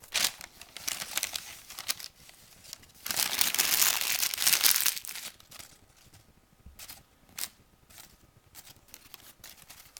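Crumpled newspaper crinkling and rustling as a cat paws and wrestles with a paper ball, in irregular bursts, with a longer, louder stretch of crinkling a few seconds in and then short scattered crackles.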